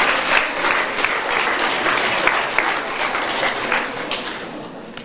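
Audience applause, many hands clapping together, dying away near the end.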